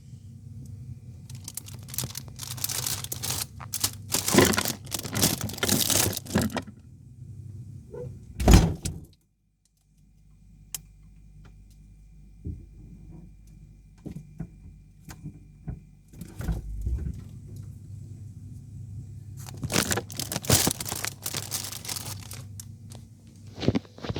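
Refrigerator door being handled: rustling and clattering, a loud thump about eight seconds in and a heavier knock later, over a steady low hum.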